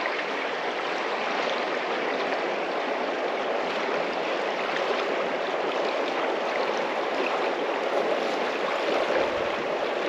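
Shallow river running over a bed of rounded stones: a steady flow of water.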